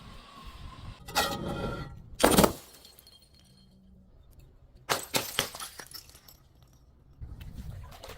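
Glass bottles breaking. A ringing clink comes about a second in, then a loud crash just after two seconds. Around five seconds there is a quick run of sharp cracks and crunching glass.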